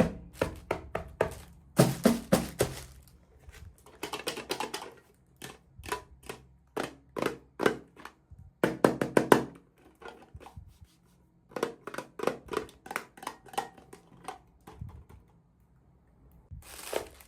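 Quick clicks, taps and crinkles of plastic packaging and small miniature toy pieces being handled while unboxing. They come in dense clusters of sharp strokes with short pauses between.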